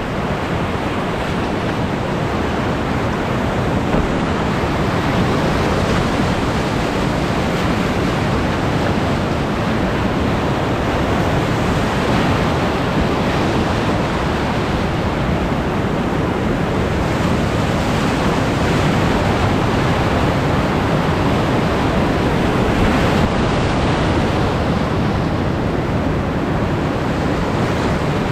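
Whitewater rapids rushing, a loud, steady wash of churning water heard from aboard a cataraft running the rapid.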